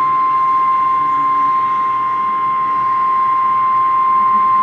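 NOAA Weather Radio's 1050 Hz warning alarm tone: a single loud, steady high tone, unbroken. It is the attention signal that announces a warning broadcast, here a flash flood warning.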